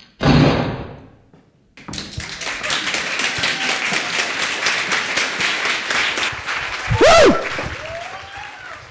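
A single loud gunshot sound effect that rings out and dies away over about a second, then an audience breaking into applause about two seconds in, with a loud whoop near the end.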